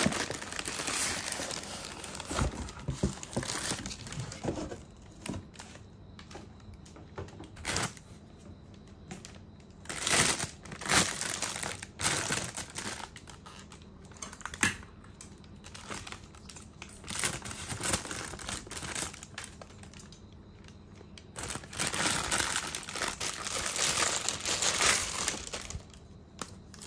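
Black plastic bag crinkling and rustling in irregular bursts as a new laser-printer toner cartridge is lifted from its box and unwrapped.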